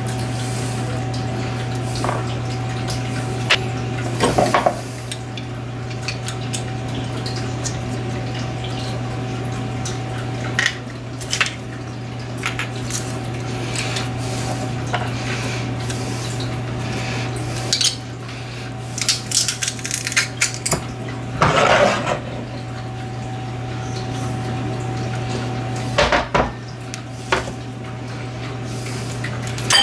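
Scattered clicks and clacks of a metal garlic press and a small kitchen knife against a cutting board and a ceramic bowl as garlic is peeled and pressed, busiest in the second half. A steady low hum sits underneath throughout.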